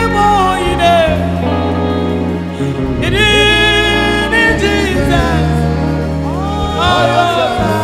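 A woman singing a gospel worship song into a microphone over a steady instrumental backing, holding long wavering notes about three seconds in and again near the end.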